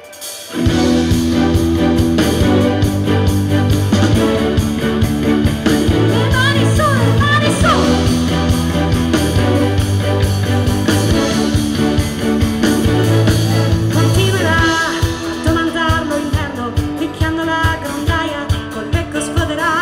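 Live rock band music that starts abruptly about half a second in: sustained bass and guitar chords over drums. The drum beat sharpens into a steady pulse near the end.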